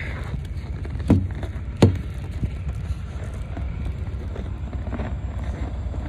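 Steady low rumble of a tanker truck's diesel engine idling, with wind buffeting the microphone in the snowstorm. Two short sharp knocks come about one and two seconds in.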